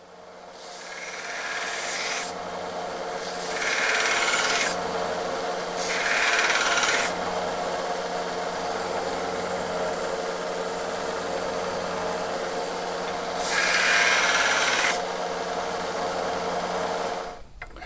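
Scheppach BD7500 belt sander switched on, running up to speed and running steadily. A small metal plate is pressed against the belt several times to round over its edges, each contact a louder rasping grind. The motor is switched off near the end.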